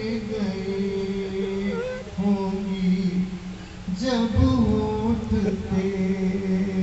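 A man singing a slow Hindi film song into a microphone, drawing out long held notes in phrases, with a pause for breath a little before the four-second mark.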